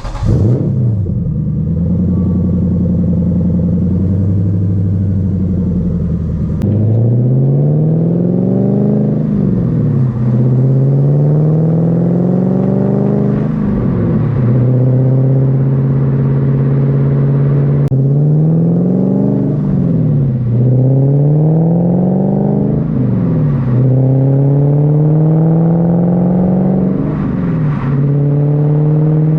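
Supercharged 1UZ-FE V8 of a manual Lexus GS400 through a freshly fitted exhaust with 4.5-inch tips. It runs steadily for about six seconds, then pulls hard through the gears: the note rises and drops back half a dozen times, as at each upshift.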